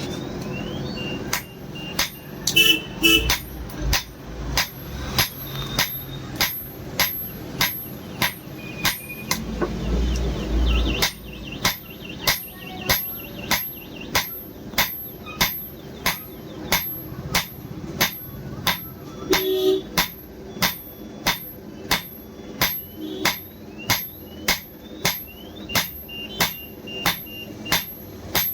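Blacksmith's hammer striking steel on an anvil in a steady rhythm, about one and a half blows a second, each blow with a short high metallic ring: forging a kukri blade from old bearing steel.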